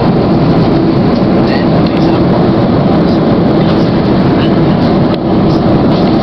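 Airliner cabin noise: a loud, steady rush with no breaks.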